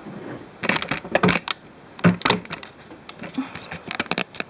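Light handling clicks and rattles of a hex key and the RC car's plastic chassis parts, in short clusters, with a quick run of sharp ticks near the end.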